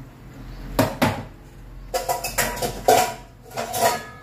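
Metal cookware clanking: a frying pan and pots knocked against each other and the stove as they are taken out of a low cupboard. Two sharp knocks about a second in, then a run of clatter with brief metallic ringing toward the end.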